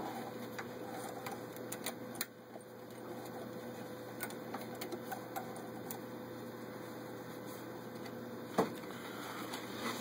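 Vintage Necchi Supernova Ultra sewing machine running steadily while stitching a decorative embroidery-cam pattern, with small mechanical clicks throughout. There is a sharp click about two seconds in and a louder single thump near the end.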